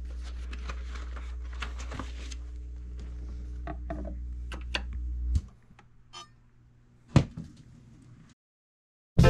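Handling a colored vinyl record: a crinkly plastic sleeve rustling and sharp clicks as the record is set on an Audio-Technica turntable, over a low steady hum that stops suddenly about five seconds in. A loud click comes about seven seconds in, and the record's music starts right at the end.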